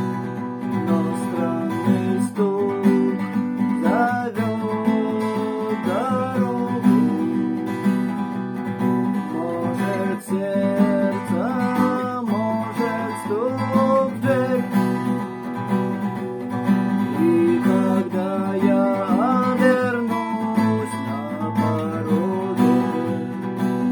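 Acoustic guitar strummed in a steady galloping rhythm, with a sliding melody line running over the chords.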